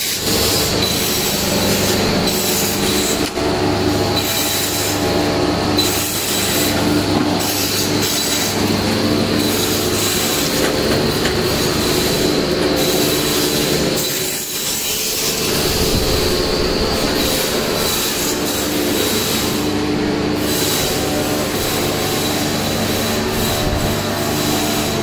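Machine cutting cassia cinnamon bark to size. It runs continuously with a steady hum and a thin constant high whine over rough scraping and rattling of the bark. The hum shifts about halfway through, and the sound briefly dips a little after that.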